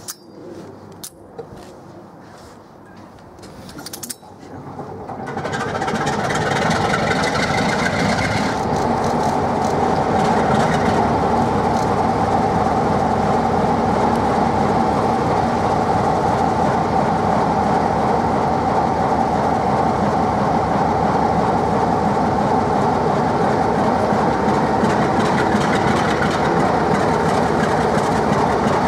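Class 47 diesel-electric locomotive's Sulzer 12LDA28 twelve-cylinder engine starting up after a few clicks, catching about four and a half seconds in and settling into a steady idle with a whine over the engine note.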